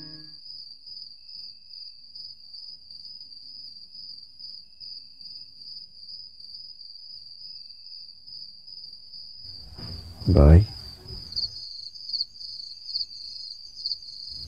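Crickets chirping in a steady, fast-pulsing trill, joined near the end by a second, higher trill.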